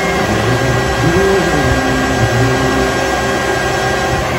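Steady whirring drone of a large electric motor and the cable drive machinery of a cable ride running.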